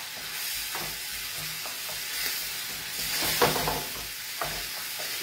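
Cherry tomatoes sizzling in a frying pan over a gas flame, a steady hiss, with a few light knocks and scrapes of a utensil in the pan.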